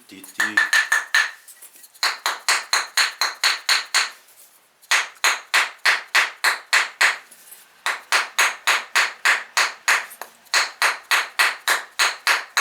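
A stoneware pot glued to a kiln shelf by glaze being knocked rapidly to break it free: runs of sharp, ringing taps about five a second, with short pauses between runs. It stays stuck.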